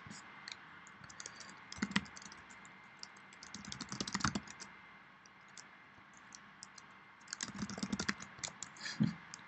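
Computer keyboard typing in short bursts of key clicks with pauses between them: a brief run about 2 s in, another about 4 s in, and a longer run near the end.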